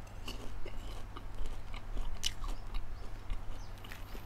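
Close-up chewing of caramel-coated popcorn: irregular crisp crunches as it is bitten and chewed.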